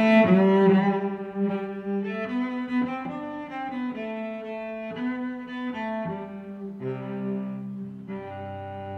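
Classical background music on bowed strings, a low cello-like line holding slow, sustained notes that change about once a second; louder for the first second, then softer.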